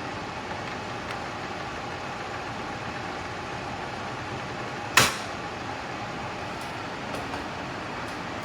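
KESSER 4-in-1 evaporative air cooler's fan running with a steady whoosh of moving air, and a single sharp click about five seconds in.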